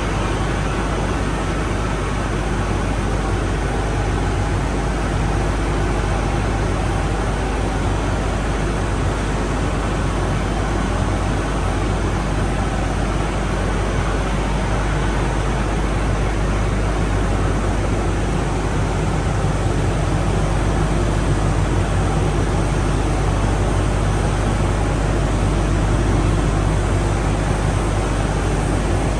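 Steady, loud industrial noise from a power plant's circulating cooling-water filter and pipework: a constant low hum under an even rushing noise, unchanging throughout.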